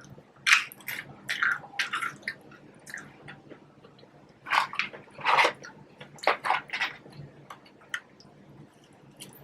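Wet chewing and lip-smacking of someone eating French fries, close to the microphone, in irregular bursts of short smacks and clicks.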